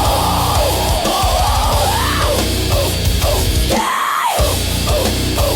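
Heavy metal song in a passage without lyrics: a lead line bending up and down over heavy, fast bass and drums. The bass and drums drop out briefly about four seconds in.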